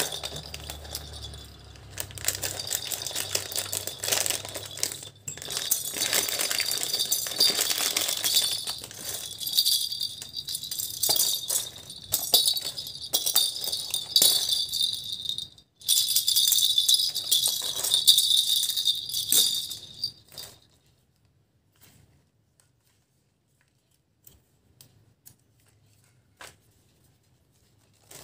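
Small bells inside hollow plastic cat-toy balls jingling and rattling as the balls are shaken and handled, stopping about twenty seconds in.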